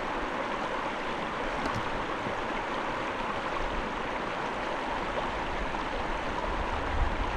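Steady rush of river water running over shoals, with a low rumble coming in about halfway through.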